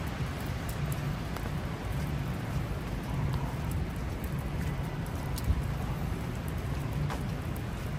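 Steady rainfall pattering on an umbrella overhead, with scattered drop taps. A low, steady rumble of city street traffic runs underneath.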